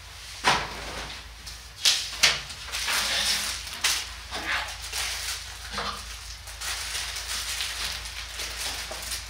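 A few sharp clicks and knocks, two of them close together about two seconds in, with a stretch of hissy rustling after them.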